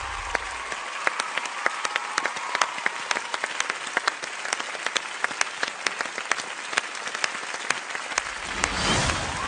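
Studio audience and coaches applauding, many sharp individual claps over a steady wash of clapping. A brief rushing swell of noise rises near the end.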